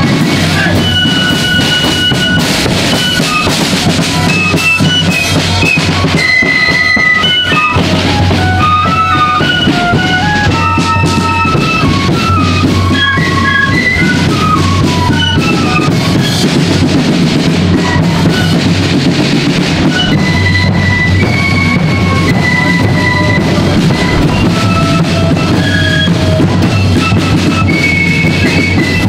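Marching flute band playing: a quick stepping tune on flutes over side drums and a bass drum keeping the march beat.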